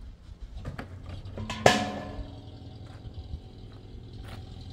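A few light knocks, then one loud, sharp strike about a second and a half in that rings briefly, as when a hard object is hit during work. A low steady hum carries on underneath.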